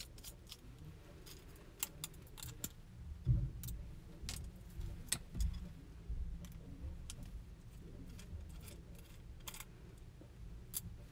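Faint clicks and small metallic rattles of a crosshead screwdriver turning out small screws with metal washers from a plastic fixture held in the hand, with a few soft knocks.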